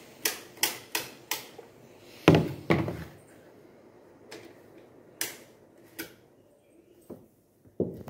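Series of sharp clicks and knocks from a curtain being handled: four quick clacks, then a heavier pair of knocks about two and a half seconds in, and a few scattered single clicks after.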